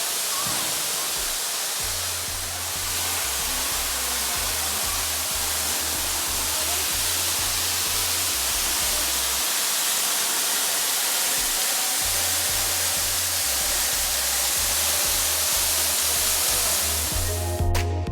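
A waterfall rushing, an even loud hiss of falling water, with the stepping bass line of electronic background music underneath. Near the end the water sound cuts off suddenly and the music carries on alone.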